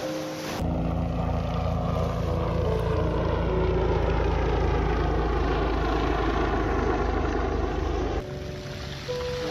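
Motorboat engine running as it passes, its pitch slowly falling; it starts abruptly a little in and cuts off suddenly near the end. Soft background music plays underneath.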